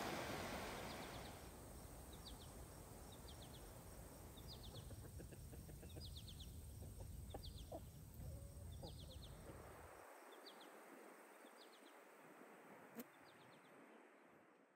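Chickens clucking softly, with short high chirping calls repeating about once a second. This comes after the rush of a mountain river fades out at the start.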